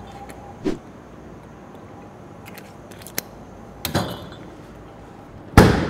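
A few short clicks and knocks from a glass drinks bottle as a woman drinks from it, with one loud thump near the end.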